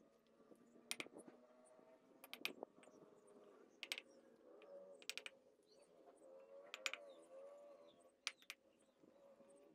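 Sharp knocks of a small hammer tapping fired bricks down into mud mortar to set them level, about a dozen irregular taps, often in quick pairs.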